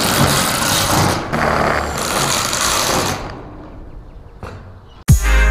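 Cordless drill boring into a corrugated metal roofing panel: two runs of drilling with a short break about a second in, stopping after about three seconds. Loud music with a heavy beat starts near the end.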